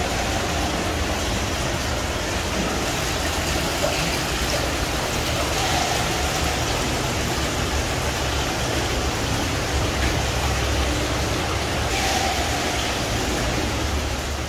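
Steady rush of flowing water in the underground brine and water channels of an old saltworks.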